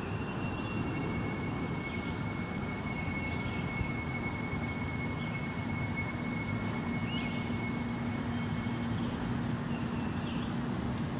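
An unidentified drone from the sky: a steady high whine held for several seconds and a low hum that joins partway through, over a low rumbling background. A few short bird chirps sound now and then.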